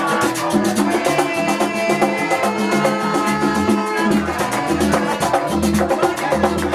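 Upbeat Latin dance music with dense percussion keeping a fast, steady beat over a repeating bass line.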